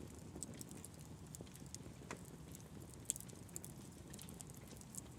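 Campfire crackling softly, with scattered sharp pops and snaps at uneven intervals over a low, steady background.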